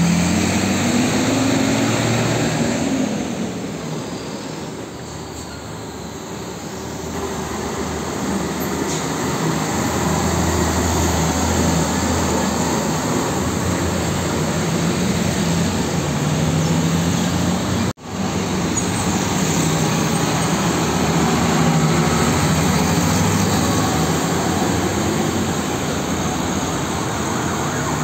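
Heavy diesel trucks passing close by one after another, among them a container-hauling tractor unit and a tanker truck: engine drone and tyre noise swelling and fading as each goes by. The sound drops out for an instant about two-thirds of the way in.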